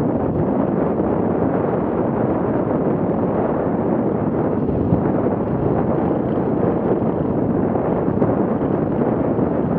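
Steady wind rush on an action camera's microphone mixed with an enduro motorcycle's engine and the rattle of riding over a rocky track, all blurred into one even, loud noise.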